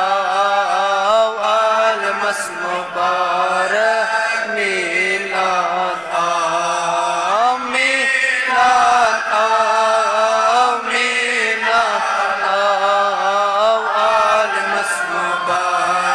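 Male vocal recitation of a naat, a devotional poem chanted in praise of the Prophet, sung in long held notes that slide up and down without a break.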